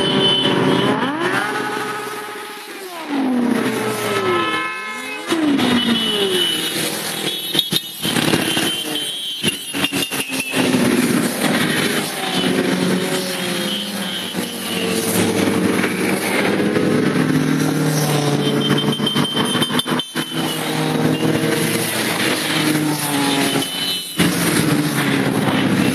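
A column of motorcycles riding past one after another, engines running and revving, with their notes falling and rising as individual bikes go by, several in the first few seconds.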